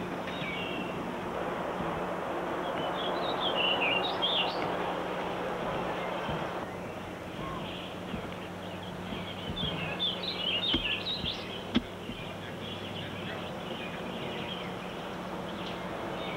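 Birds chirping outdoors in two short spells, a few seconds in and again around ten seconds in, over a steady background hiss and a low, even hum.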